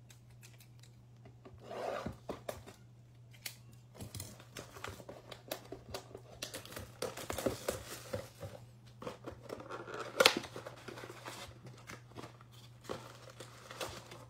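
Plastic shrink wrap being torn off a trading-card blaster box and the cardboard box opened: crinkling plastic, rustling and clicking cardboard, with one sharp louder snap about ten seconds in.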